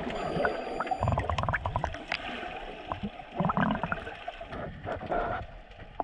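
Underwater sound around a freediver: bubbles gurgling, with bursts of quick crackling clicks about a second in and again past the middle.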